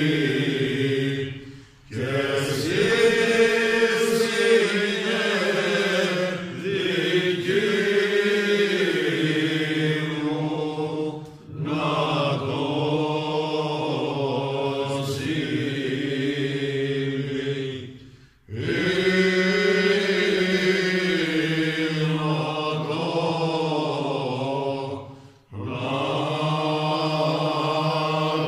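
Men's voices singing a Cretan rizitiko unaccompanied, in long drawn-out phrases broken by short pauses between lines, captured on a mobile phone.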